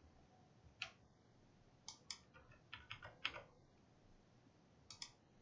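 Faint, scattered clicks from working a computer's mouse and keyboard: single clicks about a second in and near the end, and a quick run of clicks around the middle.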